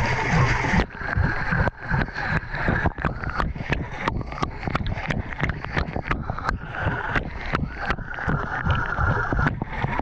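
Water sloshing and splashing in a washing machine drum as the laundry tumbles, heard from a camera tumbling along with the load. Frequent sharp knocks run through it from about a second in until shortly before the end.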